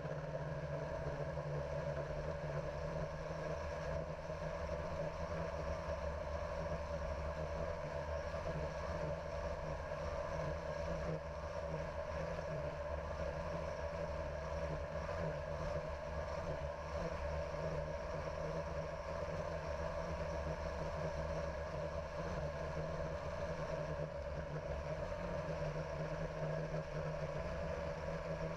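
Electric motors and propellers of a hovering multirotor drone, a steady hum heard from the camera on board.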